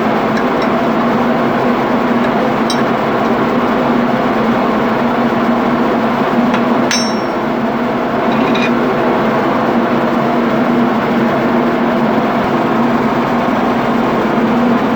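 Steady loud machinery drone with a constant low hum, the running diesel machinery of a ship's engine room. Three light metallic clinks of steel tools or parts come about 3, 7 and 8.5 seconds in.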